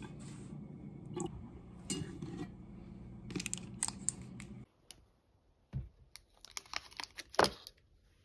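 Kitchen handling over a steady low hum: the clicks and knocks of a plastic coffee bottle and a ceramic mug. After a cut, a few knocks on a wooden desk and the crinkling of a chocolate's wrapper, with the loudest knock near the end.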